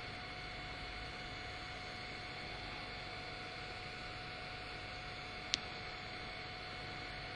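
Steady low hiss with a faint electrical hum and a few thin steady tones, room tone with no speech. A single short click about five and a half seconds in.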